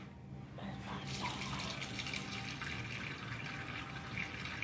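Kitchen faucet running, its stream pouring into a stainless steel pan of seasoned pork ribs to add water. The flow starts about half a second in and then runs steadily.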